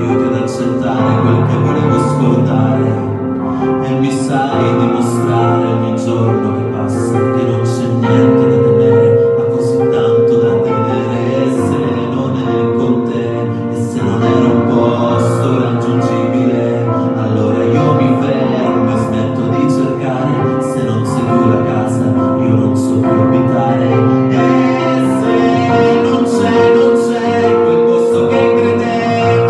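A man singing into a handheld microphone over backing music, with long held notes.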